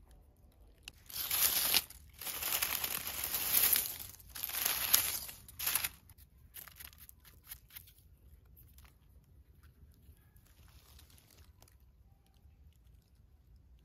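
Dry fallen leaves and pine needles rustling and crackling under a hand, in several loud bursts over about five seconds as hedgehog mushrooms are picked from the forest floor, then a few faint crackles.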